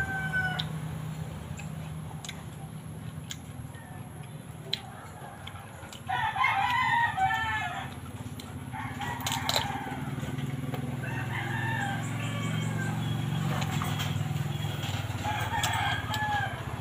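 A rooster crowing, loudest about six seconds in, with fainter crows later on. Between them come sharp crunching clicks of bites into crisp unripe mango.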